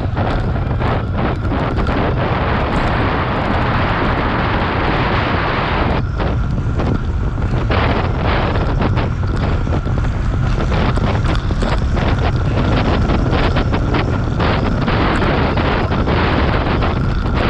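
Loud, steady wind rush on the microphone of a camera mounted on a road bike at race speed, about 25 to 28 mph.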